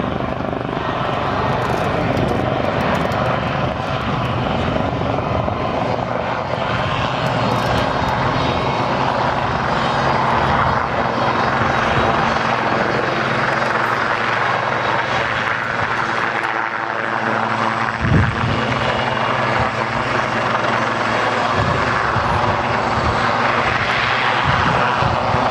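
A pair of display helicopters flying low past the crowd: a steady, loud drone of turbine engines and rotors with a low hum. There are a few brief low thumps, one of them about 18 seconds in.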